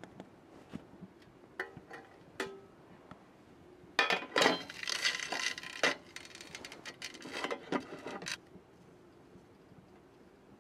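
Aluminium Trangia mess tins clinking against a steel wood-stove top as they are handled and set down: a few light clicks, then about four seconds of metal clatter and rattling in the middle.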